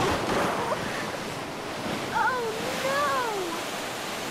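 River water rushing and lapping, a steady sound-effect bed for a cartoon river, with a few short gliding tones over it.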